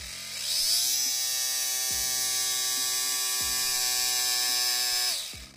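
Electric RC car motor driving a 3D-printed 3:1 gearbox at low throttle: a high whine that rises in pitch as it spins up about half a second in, holds steady, then winds down and stops near the end.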